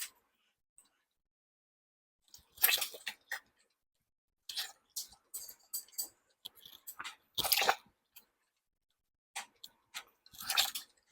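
Close-miked chewing and wet mouth sounds of someone eating, in three spells with dead silence between; the middle spell is longer and choppier.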